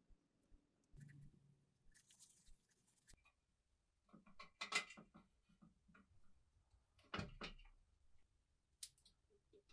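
Faint, scattered clicks and knocks of small parts being handled, the loudest two about halfway through and a few seconds later.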